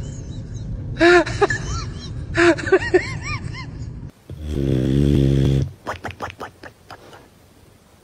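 Dog snoring: one long, loud, low rumbling snore about halfway through, followed by a few short clicks and snuffles. Before it, short high calls over a low steady rumble.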